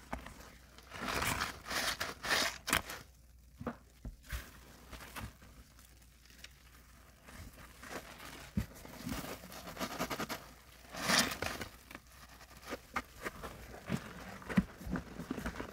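Soap-soaked sponges squeezed and kneaded by gloved hands in sudsy water: irregular squelching and crackling of foam. There is a quieter spell about three seconds in before the squeezing picks up again.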